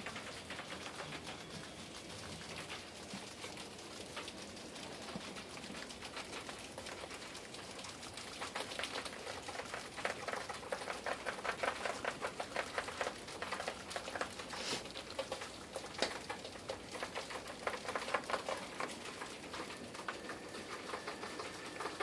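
Dozens of rats gnawing and crunching dry pasta together, a dense, rapid clicking crackle that gets busier and louder for a stretch in the middle.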